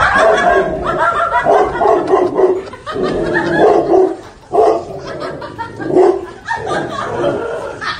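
A dog barking repeatedly in a loud string of barks with short gaps between them.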